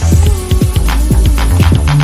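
Background music: upbeat electronic dance track with a steady thumping bass beat.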